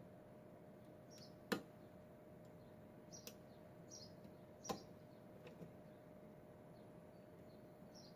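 Lock picking in a Schlage pin-tumbler lock: two sharp clicks, about one and a half and four and a half seconds in, with a few softer ticks. Faint, short bird chirps sound in the background throughout.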